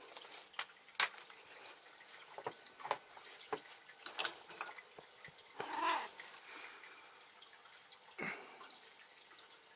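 Scattered soft clicks and taps at close range, and about six seconds in a short, pitched mew from a calico cat.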